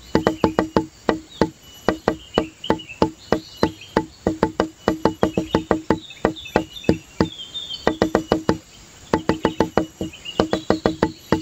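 Background music: a quick, even run of short wood-block-like percussive notes, with high chirping sounds over it.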